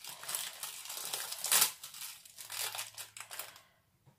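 Rustling and crinkling as processed cheddar slices are handled and torn into small pieces over a dish of macaroni, loudest about a second and a half in and stopping near the end.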